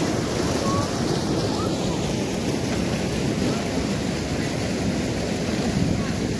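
Steady rushing of white water from a small waterfall pouring into a fast, swollen stream.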